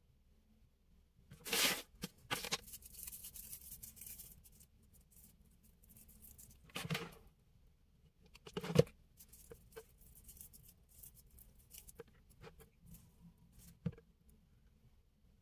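Dry raffia strands rustling and crinkling as hands handle and press tassels onto a frame, with scattered light ticks. A single sharp knock a little under 9 seconds in is the loudest sound.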